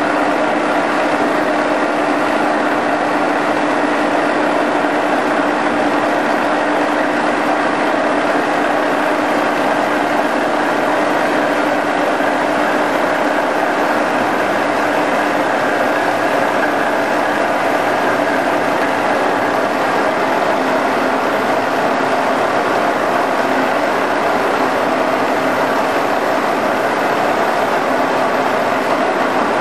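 Huron SXB 733 CNC milling machine running: a steady mechanical hum with a constant whine, while its milling head travels on the column. The whine drops slightly in pitch about twenty seconds in.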